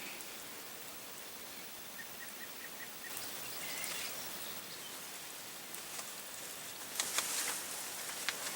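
Outdoor woodland ambience with a steady hiss. About two seconds in, a bird gives a quick run of five short, evenly spaced high notes. A few sharp clicks and rustles come near the end.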